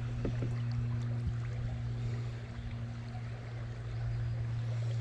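A steady low hum over a faint, even hiss, with a couple of small knocks just after the start.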